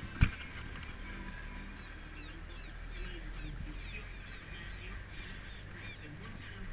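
A flock of birds calling, many short chirps and squawks in quick succession, with a single sharp click just after the start.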